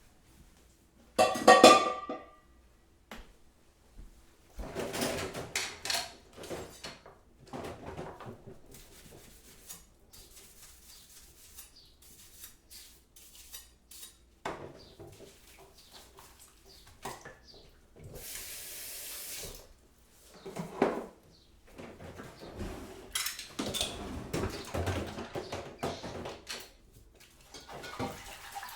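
Kitchen work with crockery and cutlery: dishes and utensils clattering and clinking, the loudest a ringing clink near the start. Water runs briefly about two-thirds of the way through.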